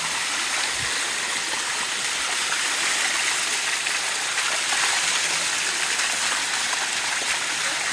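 Waterfall water rushing steadily down rock steps, an even, unbroken wash of water noise.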